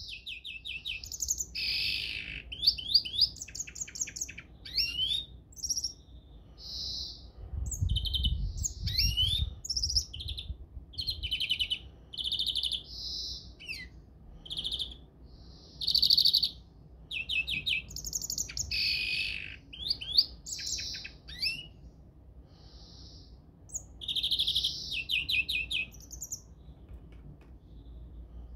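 A European greenfinch singing: rapid trills and twittering phrases mixed with buzzy notes, in bursts broken by short pauses.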